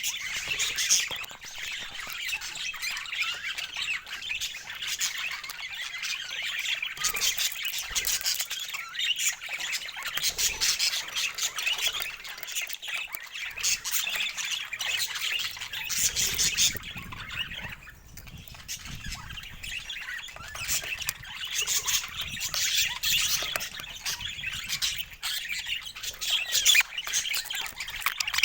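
A group of budgies (budgerigars) chattering: a dense, unbroken run of short, high calls, with a brief lull a little past the middle.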